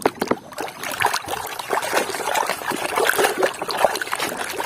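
Water trickling and splashing over a muddy toy mask as it is washed, with many small irregular splats and clicks.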